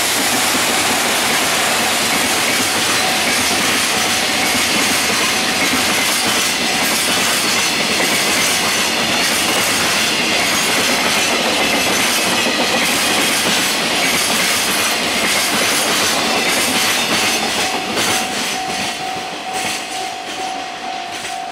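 Container wagons of a JR Freight train hauled by an EF200 electric locomotive rolling past at speed: loud, steady wheel-on-rail noise with clickety-clack over the rail joints, fading away near the end as the last wagons pass.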